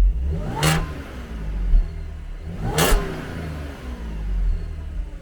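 Supercharged 3.0 V6 of a 2013 Audi S4 with a freshly fitted AWE Track exhaust, idling with a low rumble and revved twice, about two seconds apart. Each rev rises in pitch and falls back.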